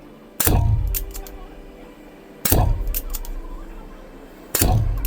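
Artemis CP2 CO2 air pistol firing three single shots, about two seconds apart, each a sharp crack followed by a few faint ticks.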